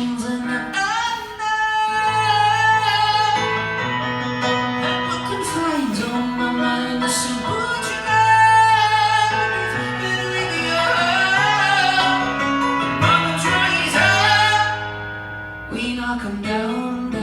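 A male singer performing a slow song live, holding long sung notes over acoustic guitar.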